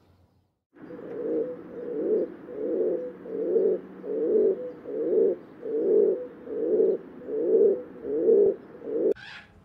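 Low cooing calls repeated steadily, about eleven of them at a little more than one a second, starting just under a second in and stopping shortly before the end.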